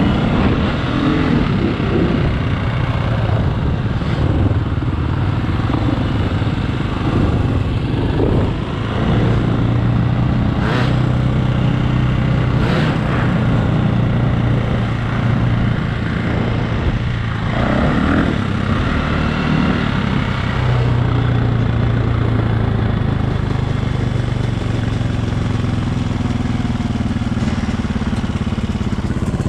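Dirt bike engine running while riding, heard from the rider's seat, its pitch rising and falling a few times as the throttle opens and closes.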